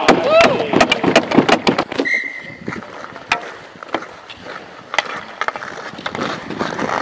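Ice-hockey skates scraping and carving on outdoor ice, with sharp clacks of sticks and puck throughout. A voice shouts at the start, and a brief high whistle sounds about two seconds in.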